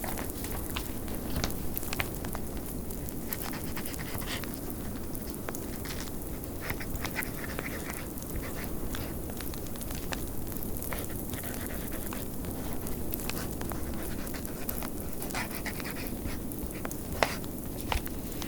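Fireplace crackling, with sharp irregular pops over a steady low rumble of blizzard wind.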